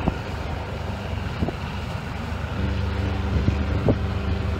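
Marine diesel engine of a large steel fishing boat running steadily with a low hum that grows stronger a little past halfway, as propeller wash churns the water. Wind buffets the microphone.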